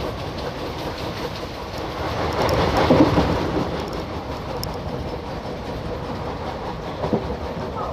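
Passenger train running on the track, heard from on board: a steady rumble with a few rail-joint clicks. It swells louder for a second or so about three seconds in.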